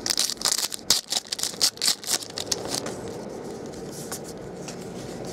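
Crinkling rustle of a foil trading-card pack and the cards being handled: a quick, irregular run of crackly rustles for about two and a half seconds, then only a quieter steady background noise.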